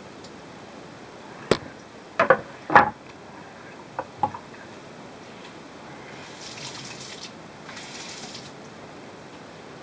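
Wooden cutting boards knocking together on a kitchen counter as one is laid down on the other: a sharp knock, then a quick clatter of several more. Two lighter clicks follow as a peeled onion is set on the board, and later two short soft hisses.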